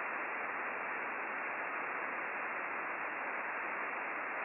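Steady hiss of an Icom IC-9700 transceiver receiving in upper sideband on the RS-44 satellite's downlink, with no station transmitting: only band noise, cut off above about 3 kHz by the sideband filter.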